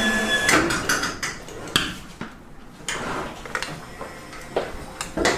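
Claw machine: its metal claw clicking and clacking against the clear plastic candy boxes as it comes down among them, a string of about eight sharp, separate knocks.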